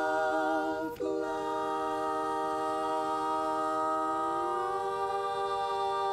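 Mixed barbershop quartet singing a cappella in close harmony, holding one long chord on the word "soft". One voice glides upward about four seconds in, shifting the chord.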